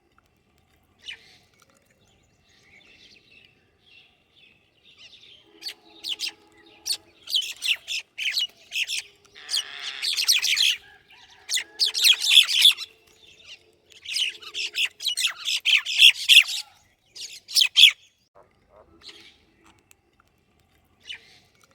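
Small birds chirping, a few scattered calls at first, then a dense run of rapid, high chirps through the middle, thinning out again near the end.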